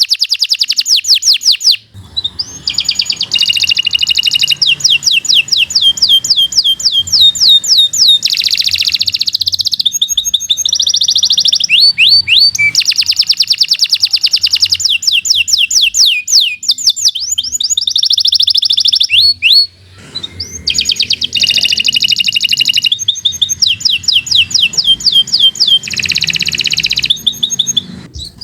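Domestic canary singing a long, continuous song of rapid, high trills and rolling phrases, with short breaks about 2 seconds and about 20 seconds in.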